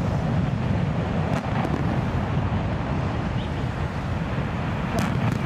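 Deep, continuous rumble of a brick chimney stack and concrete cooling towers collapsing in a controlled explosive demolition, heard from far off and mixed with wind on the microphone. A few sharp cracks cut through it, two about a second and a half in and two near the end.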